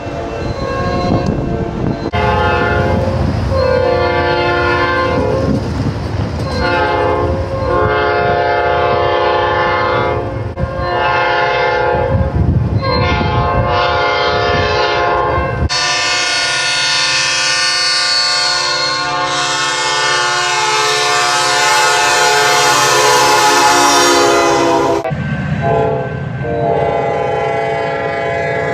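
Metra F40PH diesel locomotive air horns sounding over the rumble of the train: a series of separate horn blasts, then one long blast held for about nine seconds, then shorter blasts again near the end.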